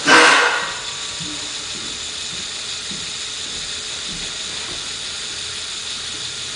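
Small electric motor in a LEGO Technic logging truck running, its plastic gears whirring with a ratcheting click, after a short loud burst of noise right at the start.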